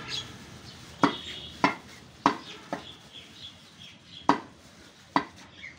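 Heavy butcher's knife chopping beef on a wooden log chopping block: about six sharp, irregularly spaced chops, with lighter taps between them.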